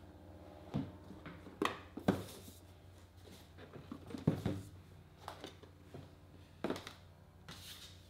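Cardboard boxes handled and stacked on a desk: a series of short knocks and scrapes as they are picked up and set down, with a longer rustle near the end, over a low steady hum.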